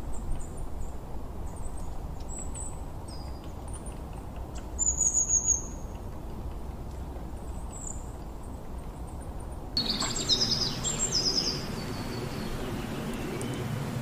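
Small birds chirping: short, high-pitched chirps and trills over a low, steady background. About ten seconds in, the background gets louder and a different run of lower, falling chirps starts.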